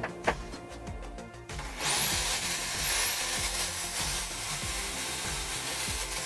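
Electric drill mounted in a drill press stand starts up a little under two seconds in and runs with a steady high whine while drilling into the workpiece, its pitch dipping briefly about a second after start-up. A few light clicks come before it starts.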